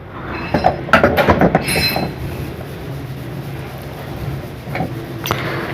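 Metal clinks and knocks of a wrench working the check nut on a washing machine's rotor set as it is tightened, a quick cluster in the first two seconds and a single knock near the end, over a steady low hum.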